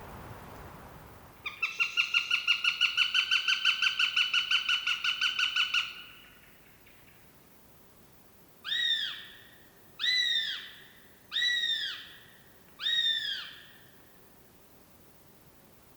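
Wild bird calls: a loud, rapid trilled call lasting about four seconds, then, after a pause, four separate arched calls about a second and a half apart.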